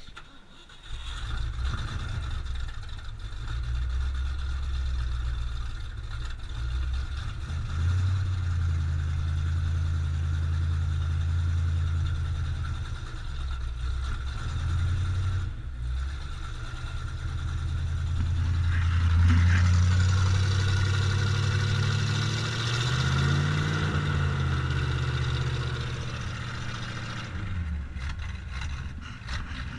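1979 Ford Bronco's V8 on a cold start, getting sharply louder about a second in and settling into a steady idle. Around two-thirds of the way through, the revs rise and fall back.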